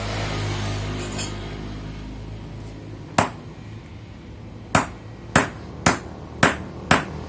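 Hammer tapping a new oil seal into a motorcycle front fork leg: sharp metallic strikes, a single one about three seconds in, then a run of five coming roughly every half second.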